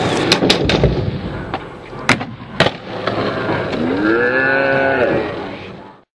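Skateboard rolling on asphalt with several sharp clacks of the board in the first few seconds. Then a long drawn-out voice call rises and falls in pitch for about a second and a half, and the sound fades out.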